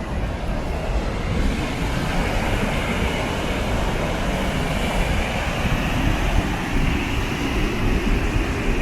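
Steady rushing noise of water pouring over the falls, with a deep uneven rumble underneath.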